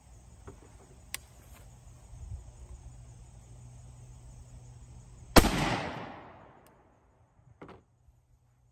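A single shotgun shot about five seconds in, a 2¾-inch nine-pellet 00 buckshot load fired through a ported Kicks Buck Kicker choke, its report echoing off and dying away over about a second.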